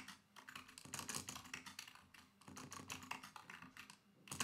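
Computer keyboard typing: quick, irregular key clicks with short pauses, as numbers are entered into a document.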